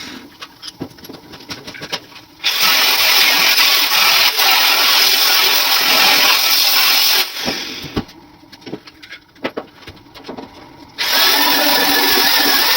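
Loud steady hiss that cuts in and out: on for about five seconds, off for a few seconds of scattered clicks and knocks, then on again near the end.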